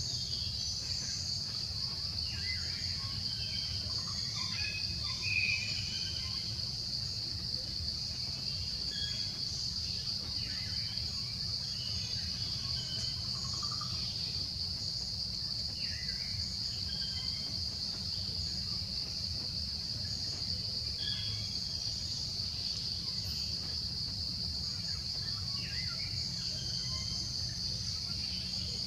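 Insects droning steadily in one continuous high-pitched band, with scattered short chirps over it and a low steady rumble underneath.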